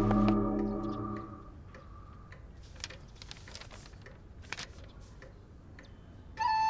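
Light ticking like a clock in a quiet room, heard after a low steady tone fades away in the first second or so. A flute melody comes in at the very end.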